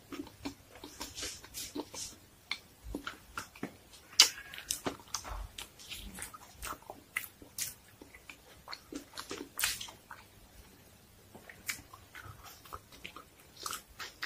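A person chewing food close to the microphone: irregular mouth clicks and crunches, several a second, with brief pauses.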